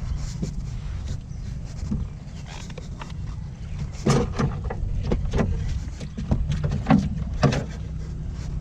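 Knocks and clunks of gear being handled in a small boat, over a steady low rumble.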